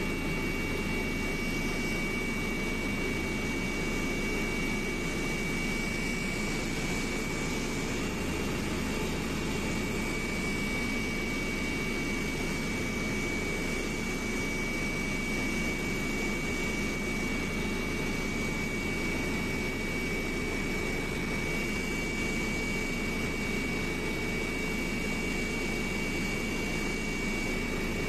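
Passenger aircraft cabin noise in flight: a steady rushing engine drone with a thin, constant high whine on top.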